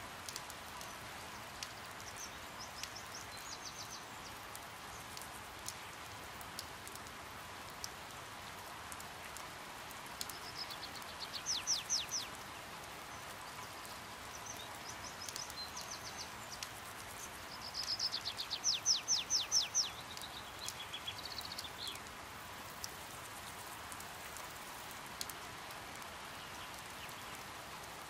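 Steady patter of light rain, with a small bird's rapid series of high, sharp chips breaking in several times, two louder chattering bursts about halfway through and again a few seconds later.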